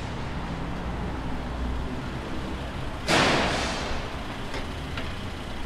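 City street traffic rumbling steadily, with a sudden loud hiss of air about three seconds in that dies away over about a second.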